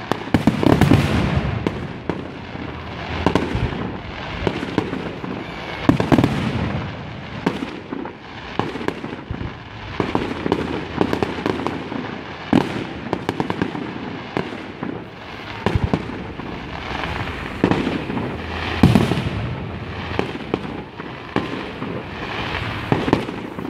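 Fireworks display: aerial shells bursting in a steady barrage of sharp bangs over a continuous rumble, with the loudest bursts about a second in, at about six seconds and at about nineteen seconds.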